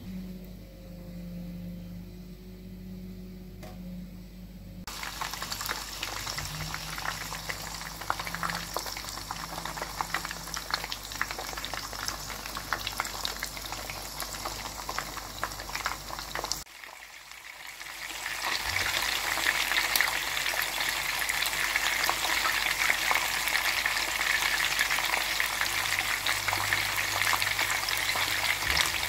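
Whole small Danube whitefish frying in hot oil in a pan, sizzling and crackling with many small pops. It starts about five seconds in after a low hum, drops away briefly past the middle, then comes back louder.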